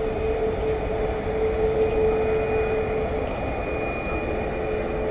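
Boeing 737 jet engines running at taxi power as the airliner rolls along the taxiway: a steady noise with a held whining tone over it.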